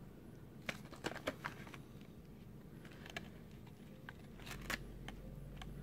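Faint, scattered crinkles and ticks of a plastic-foil blind-bag packet being turned and squeezed between the fingers, with a couple of small clusters of crackles.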